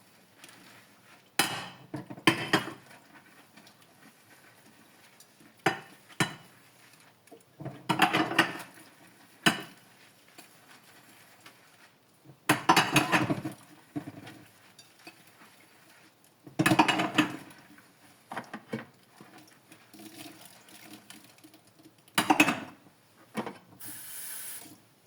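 Dishes and cutlery clinking and clattering in a kitchen sink while being washed, in separate bursts every few seconds, with a short hiss near the end.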